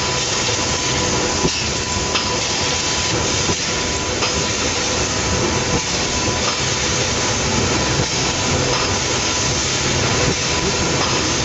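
Plastic cup thermoforming machine running: a steady, dense mechanical noise with a thin, even whine and occasional faint clicks.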